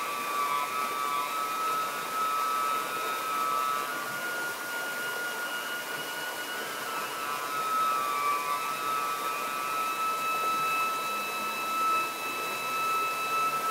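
Alto saxophone holding a long, unbroken high drone of several tones sounding at once, the pitches shifting slightly a few times, over the steady rush of a stream over rocks.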